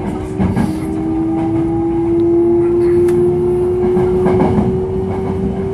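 Sanyo Electric Railway 5030 series train's VVVF inverter and traction motors whining in one steady tone that climbs slowly in pitch as the train gathers speed, heard from on board over the rumble of wheels on track.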